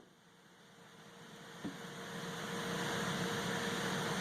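Steady background hum and hiss with a constant low tone, fading in from near silence over the first second or two, with one faint tap about one and a half seconds in.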